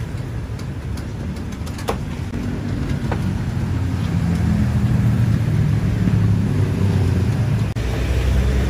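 Motor vehicle engine running close by, a low rumble that grows louder about four seconds in.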